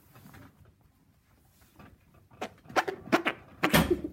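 Armpit farts: a hand cupped under the armpit and pumped with the arm, making three quick squelchy blasts and then a longer, louder one near the end.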